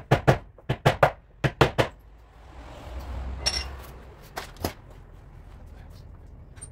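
Sharp metallic taps from paintless dent repair tools on the car body: about nine quick taps in groups of three over the first two seconds, a brief rustle, then two more taps about four and a half seconds in.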